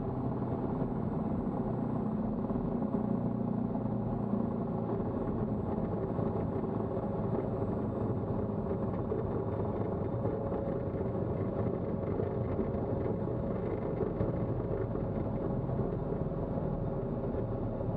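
Steady noise inside the cockpit of a Colomban CriCri jet as it rolls along the ground, low and even throughout with a faint hum in it.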